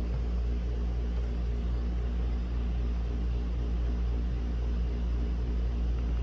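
Steady low droning hum with a deep rumble underneath, holding an even pitch and level throughout, with no keyboard clicks.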